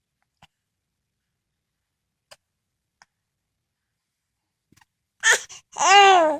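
A sneeze, a short sharp burst about five seconds in, followed half a second later by a brief, louder high-pitched vocal sound that rises and falls in pitch.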